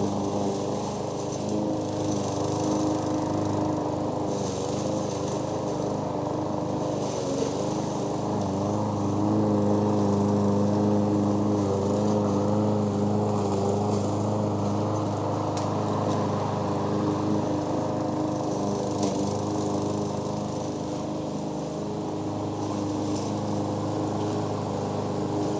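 Lawn mower engine running steadily during mowing, its note dipping briefly a few times and growing louder for a few seconds near the middle.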